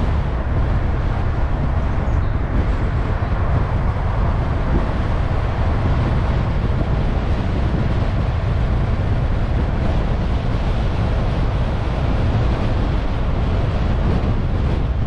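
Car driving at steady speed: continuous road and tyre noise with a deep engine and road rumble.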